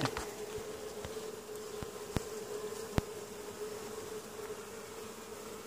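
A mass of honeybees buzzing in a steady hum, with a few sharp clicks over it.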